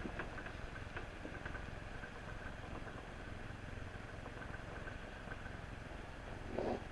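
Steak and onions sizzling in a pan over a butane camp stove, running well on a fresh butane canister: a steady hiss with faint crackles. A brief low sound comes near the end.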